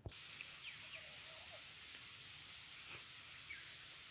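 Faint outdoor ambience: a steady high-pitched insect drone, with a few short, faint chirps over it.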